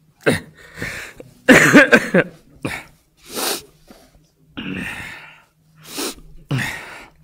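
A man crying: broken, voiced sobs, the loudest about a second and a half in, then several sharp sniffs and breaths through the nose.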